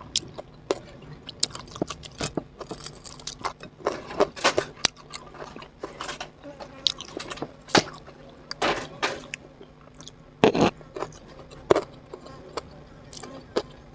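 A person chewing and eating close to the microphone: irregular small clicks and crunches, with a few louder ones about four and a half and ten and a half seconds in.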